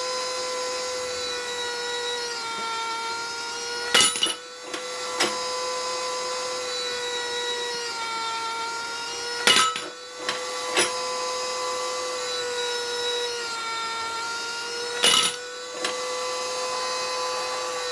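Annealeez bench case annealer running with 338 Lapua brass cases: a steady whine over a faint hiss, broken by a sharp clatter with a click or two after it about every five and a half seconds. The clatters come as the indexing wheel moves a case out of the propane flame and the next case in.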